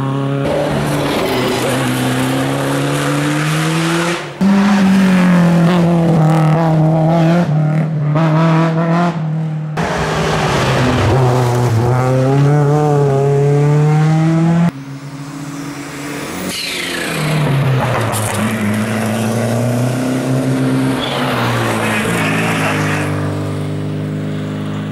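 Historic rally cars driven flat out on a special stage. Their engines rev high, drop through gear changes and pull away again, in several short clips cut one after another.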